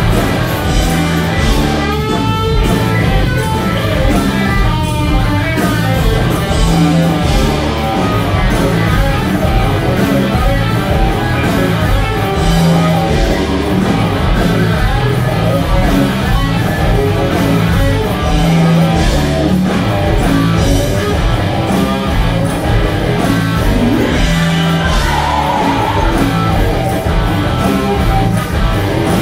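Live hard-rock band playing loudly: a lead electric guitar solo, run through a Fractal Audio FM9 amp modeler, with bent and wavering notes, over drums and bass.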